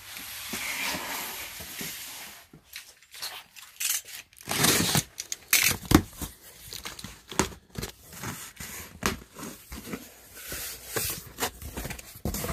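A corrugated cardboard box being handled and opened: packing tape tearing, cardboard scraping and knocking on the table, and flaps rustling as they are pulled back.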